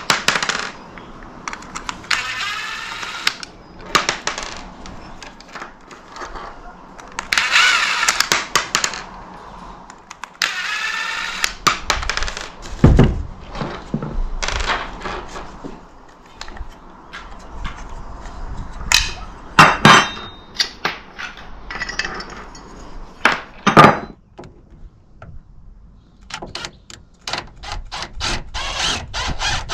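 Scattered clinks, knocks and clatters of hand tools and metal parts being handled, with a few louder knocks spread through.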